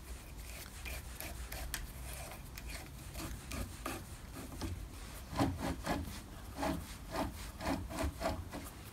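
A pointed steel pin scraped and rubbed through the bolt hole of a ball screw end block against the drill press table to mark the hole position. Scattered small metal clicks at first, then from about halfway a run of short scraping strokes, about two a second.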